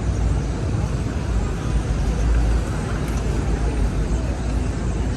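City street traffic: a steady low rumble of passing vehicles, swelling slightly about two seconds in.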